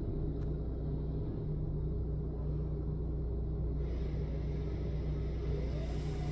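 A large engine running steadily, a machine working at the tree-cutting job, with a faint rising whine near the end.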